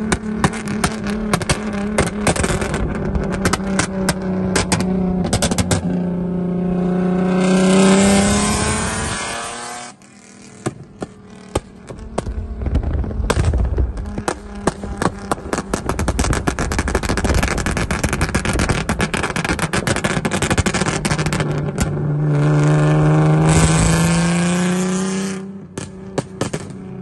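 Infiniti G37's 3.7-litre V6 running with its exhaust blown off, so the open pipes crackle and pop rapidly all the way through. It revs up hard twice, about six seconds in and again about twenty-two seconds in, and each pull builds louder and then cuts off sharply.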